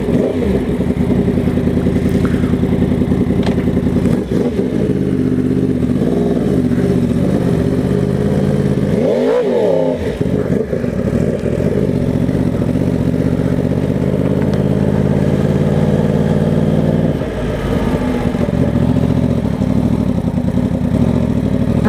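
2020 Yamaha R1's crossplane inline-four engine running just after start-up, mostly steady with a few small throttle blips and a brief swing in revs about nine seconds in.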